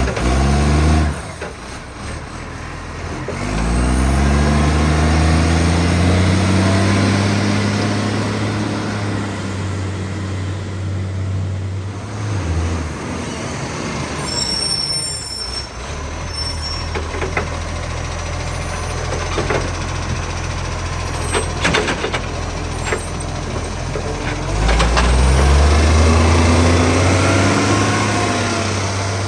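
Garbage truck's diesel engine pulling away and running under load, easing off about twelve seconds in and pulling away again near the end; the truck has a huge exhaust leak. A short high squeal and a few clicks come about halfway through.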